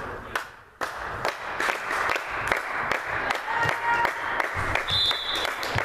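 Spectators clapping in a sports hall, starting abruptly about a second in and continuing as many irregular claps. A short, high whistle tone sounds about five seconds in.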